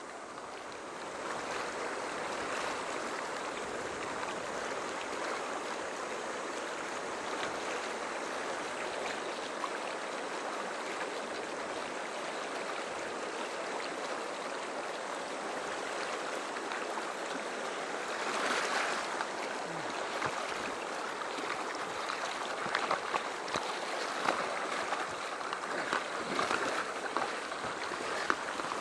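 Fast river current rushing over rapids, a steady roar of water. In the last several seconds a few short, sharp sounds stand out above it.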